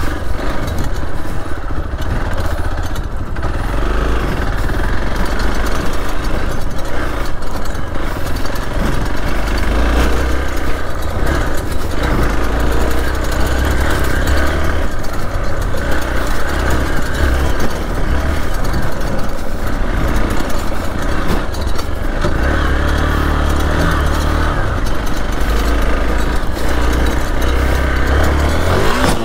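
Hero XPulse 200 4V's single-cylinder engine running as the motorcycle is ridden on a dirt track, swelling and easing with the throttle.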